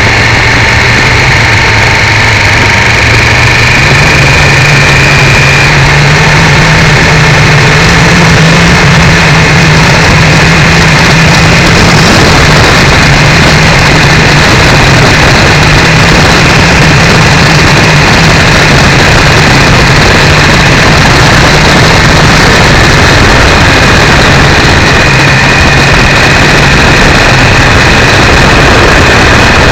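Triumph 955i motorcycle's three-cylinder engine running at steady road speed, its note rising slightly a few seconds in and then holding, under heavy wind rush on a cheap camera microphone mounted at the fog light. The sound is very loud and distorted.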